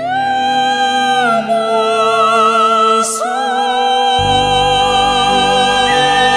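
Background music: a slow melody of long held, wavering notes over accompaniment, with a low bass line coming in about four seconds in.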